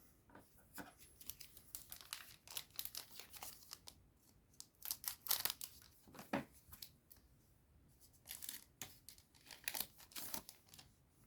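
Foil wrapper of a trading card booster pack being torn open and crinkled by hand: a run of quiet, irregular crackles and tearing scrapes.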